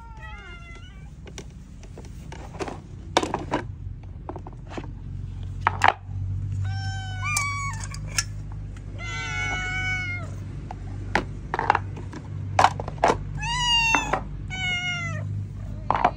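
Several cats meowing over and over, their calls overlapping, as they crowd around their food bowls begging to be fed. Sharp knocks come in between the meows.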